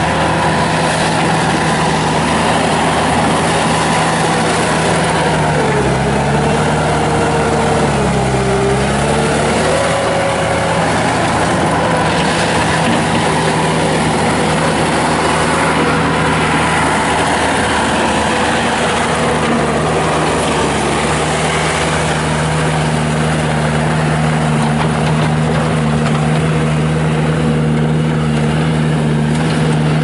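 Bobcat T300 track loader's Kubota turbo diesel running at high revs. Its pitch sags twice, about six and eight seconds in, as it lugs under load, then holds steady.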